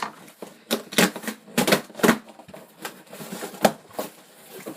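A box of LED strip lights being opened by hand: irregular crinkling and rustling of packaging, broken by about eight sharp clicks and knocks.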